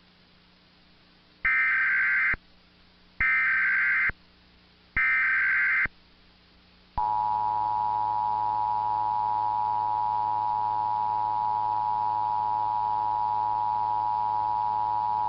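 Emergency Alert System test signal from a TV: three short buzzing bursts of data tones (the SAME header), each about a second long, then about seven seconds in the steady two-tone EAS attention signal begins and holds. A faint low hum lies underneath.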